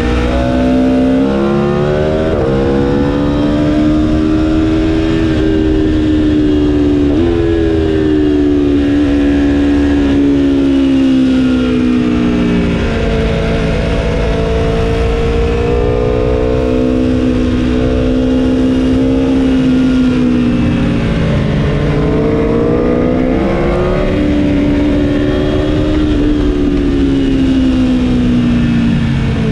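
2019 Aprilia Tuono's V4 engine under load in second gear on a race track. The engine note rises and falls repeatedly as the throttle is opened out of the corners and rolled off into them.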